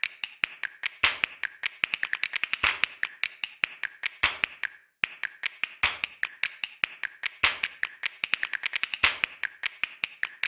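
A rapid, uneven run of sharp, light clicks and taps, in clusters, with a short break about five seconds in.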